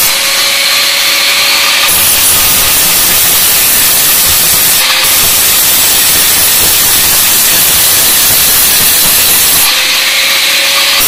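DeWalt angle grinder running with its abrasive disc pressed against a metal bowl, a loud steady grinding hiss. The motor's thin whine stands out at the start and again near the end.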